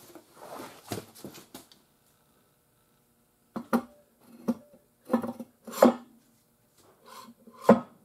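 Handling noise from an alloy wheel and tire being set on a portable bubble wheel balancer: faint scuffing, then about five sharp metallic knocks with a short ring in the second half, the last one the loudest.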